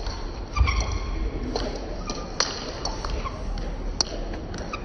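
Table tennis ball clicking sharply off paddles and the table in an irregular rally, echoing in a large hall. A low thump comes about half a second in.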